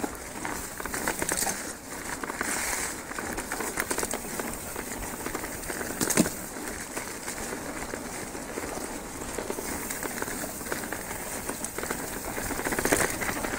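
Mountain bike rolling fast down a leaf-covered forest trail: a steady crackling rattle of tyres over dry fallen leaves and the bike shaking over the ground, with one sharp knock about six seconds in.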